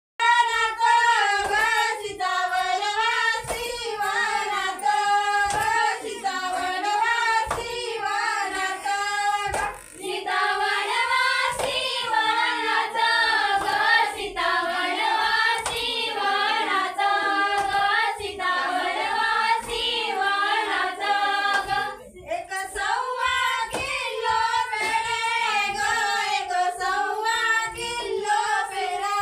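A group of women and girls singing a Marathi folk song together for a traditional women's circle dance, with hand claps keeping the beat.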